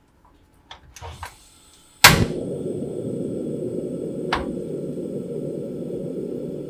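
Portable gas stove being lit under a frying pan: a few small clicks, a sharp igniter snap about two seconds in, then the burner flame running with a steady low rush, with one more click partway through.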